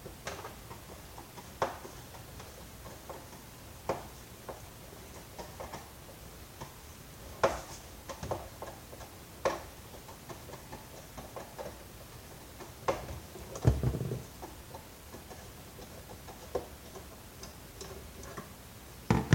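Scattered, irregular clicks and light knocks of a screwdriver working against the plastic housing of a vacuum cleaner, with one duller thump a little over two-thirds of the way through.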